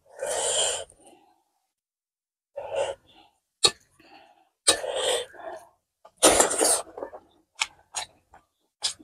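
Close-miked eating noises from a person eating with very hot dalle chilli: four sharp, noisy breaths or sniffs, each under a second long, with short mouth clicks between them and several quick clicks near the end.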